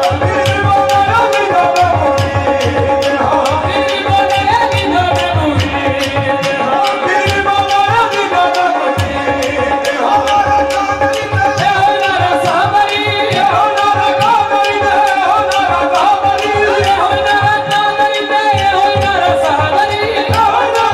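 Live qawwali: the lead singer's voice over a steady held drone, with tabla and handclaps keeping an even rhythm.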